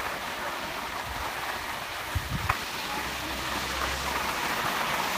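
Skis sliding over packed snow, a steady scraping hiss, with wind rumbling on the microphone in the second half. A single sharp click about halfway through.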